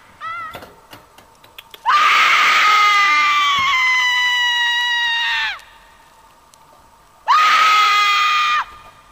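High-pitched screaming: one long scream of about three and a half seconds, its pitch sagging slightly, starting about two seconds in, and a shorter steady one near the end, with a brief warbling squeak just after the start.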